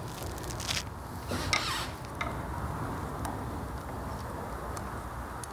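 Light scrapes and a few faint clicks of small metal parts being handled during oil pump disassembly, over a steady low hum.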